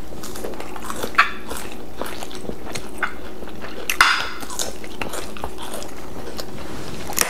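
Sounds of eating at a table: chewing and small clinks of cutlery and fingers on ceramic plates, over a steady low hum. The two most prominent clicks come about a second in and about four seconds in.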